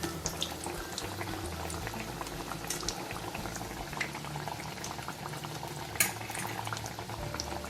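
Battered raw banana slices (vazhakkai bajji) deep-frying in hot oil: steady bubbling with small crackles and pops throughout, and one sharper click about six seconds in.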